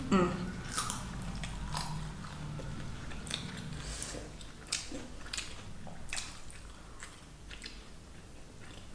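Close-miked chewing and biting of pineapple pieces: wet mouth clicks and smacks, several a second at first, thinning out and getting quieter toward the end.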